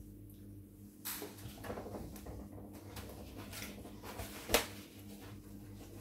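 Kitchen paper towel rustling as a sheet is taken off the roll and handled, with one sharp click a little past the middle.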